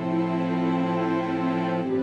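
Background music of slow, held chords, changing to a new chord near the start and again near the end.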